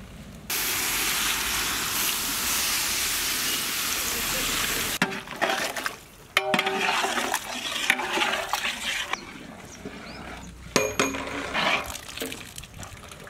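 A steady rushing hiss for about four and a half seconds. Then a metal ladle stirs a large pot of thick vegetable sambar, scraping and clanking against the pot with short ringing clinks. A sharp metal clink comes near the end.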